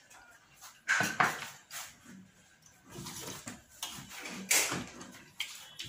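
Eating sounds: a few loud slurps of soupy curry from a spoon, about a second in and again later, with quieter chewing and mouth sounds between.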